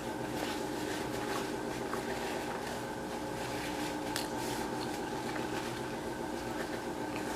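Soft chewing and wet mouth sounds of someone eating, heard as small irregular clicks over a steady electrical or fan hum.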